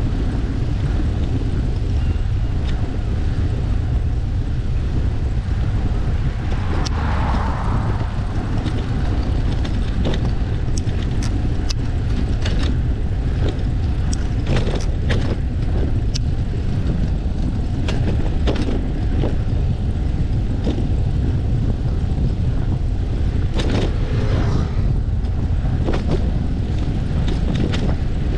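Wind rumbling on the microphone of a camera riding on a moving bicycle, with scattered sharp clicks and rattles through the second half.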